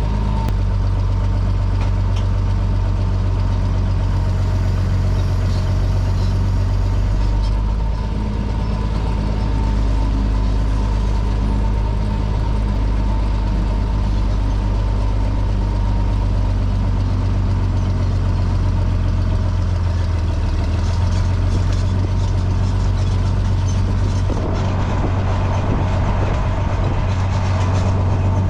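Farm tractor engine running steadily, a loud, even low drone with a constant whine, while pulling a hay rake.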